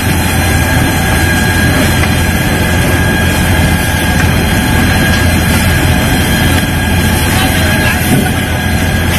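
Steady loud roar at a large building fire being fought with hoses, with a low steady hum underneath.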